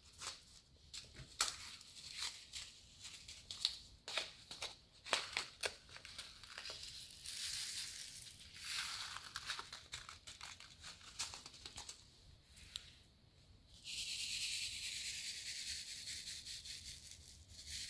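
Small plastic zip-lock bags of square diamond painting drills being handled: the plastic crinkles, with many light clicks, and there are longer stretches of rustling partway through and from a few seconds before the end.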